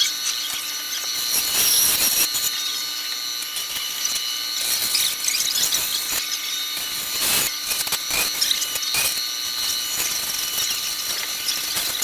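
A small power tool running steadily with a high whine while cutting the rough outline of a template, with scratchy grinding noise and a few sharp knocks as the work is moved.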